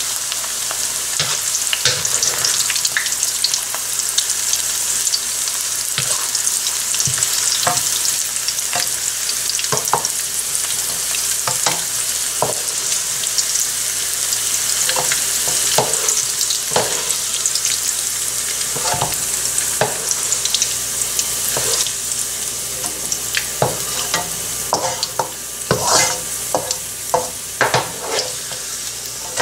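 Sliced onions sizzling in hot oil in a nonstick wok, with a steady hiss. A wooden spoon scrapes and taps against the pan as the lightly golden onions are lifted out, the knocks growing louder and more frequent near the end.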